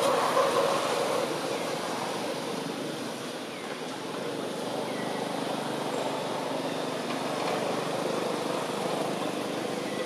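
Steady outdoor ambient noise, a hum of distant road traffic, a little louder in the first second or so before settling.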